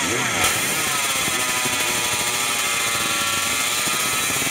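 Yamaha RD05-replica 250 cc racing motorcycle's two-stroke engine being revved: the revs fall away after a throttle blip, with a short pop about half a second in, then are held high and fairly steady, the pitch sagging slightly and climbing back near the end.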